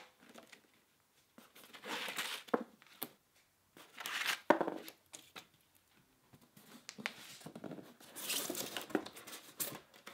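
Hook-and-loop cinch straps being ripped open in a few short tearing bursts, with the styrofoam packing lid rubbing against the box as it is pulled free.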